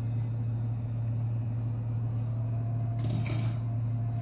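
A steady low mechanical hum, with a brief scraping noise about three seconds in.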